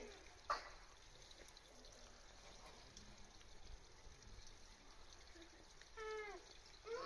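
A Japanese macaque gives one short coo call that falls in pitch near the end, over quiet background. There is a single sharp click about half a second in.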